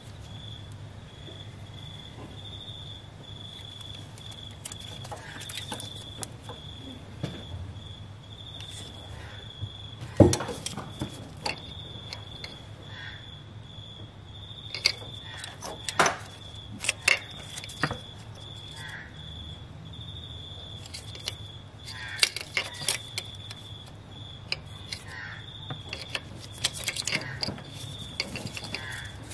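Plastic engine wiring-harness connectors being unclipped and handled by gloved hands: scattered sharp clicks and knocks, the loudest about ten seconds in, with a cluster of them in the middle and more near the end. Behind them run a low hum and a steady, high-pitched pulsing chirp.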